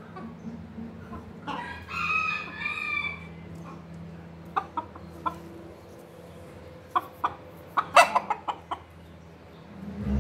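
A rooster crows once, a call of about a second and a half that starts about one and a half seconds in. It is followed in the second half by a run of sharp clicks and taps.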